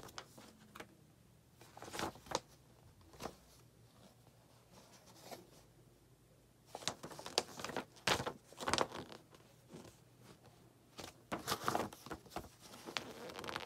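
Paper instruction manual being unfolded and leafed through: scattered short paper rustles and light handling knocks, in clusters about two seconds in, in the middle, and near the end.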